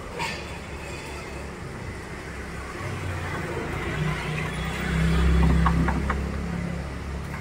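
A motor vehicle's engine passing close by on the street: a low hum that swells from about three seconds in, is loudest a little past the middle, and fades again, over a steady background of traffic noise.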